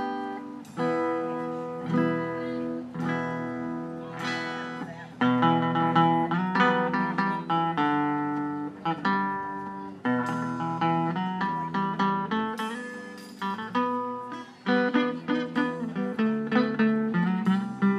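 Live instrumental band music from guitar, upright bass and drums. The guitar picks the melody in ringing single notes and chords over a plucked upright bass line.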